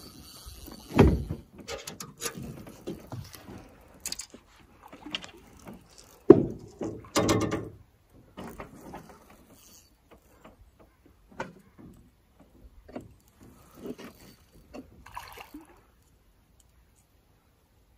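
Scattered knocks and thumps of handling in a fishing boat, the loudest about a second in and again about six seconds in, thinning out after eight seconds.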